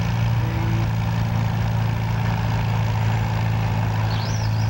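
Farmall tractor engine running steadily under load as it pulls a weight-transfer sled: an even, low drone that holds the same pitch throughout.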